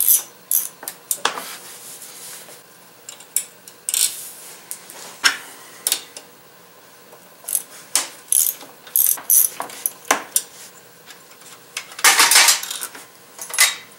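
Hand ratchet clicking in short strokes as the throttle body's retaining bolts are undone, with scattered metal clinks of tool and bolts, and a longer metallic clatter near the end as the throttle body is worked loose.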